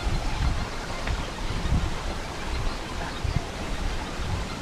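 Steady rush of water from a stream cascading over rocks below a waterfall, with low thumps now and then.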